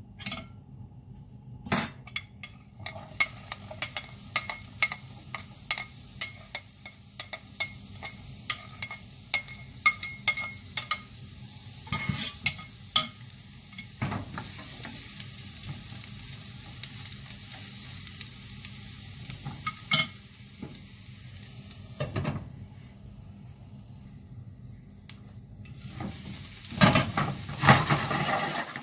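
Kimchi fried rice ingredients sizzling in a hot pan while a metal utensil stirs them, tapping and scraping against the pan. The sizzle starts a few seconds in, fades briefly about two-thirds through, then returns with a burst of louder clattering near the end.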